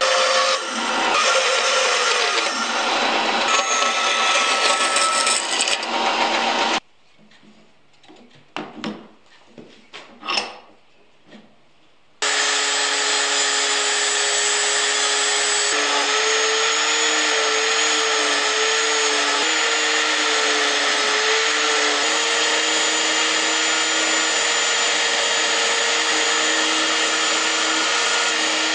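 A band saw cuts through laminated skateboard wood for about seven seconds, then stops. After a quiet gap with a few knocks, a vise-clamped rotary tool with a sanding disc starts and runs as a small wooden fish is held against it. Its steady whine wavers slightly.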